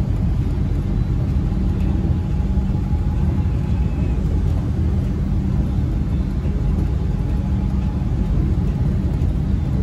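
Bangkok MRT Yellow Line rubber-tyred monorail train heard from inside the car as it runs between stations: a steady low rumble with a faint steady whine above it.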